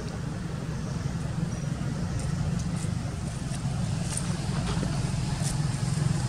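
A steady low mechanical hum, like an engine running nearby, with scattered faint crackles from about two seconds in.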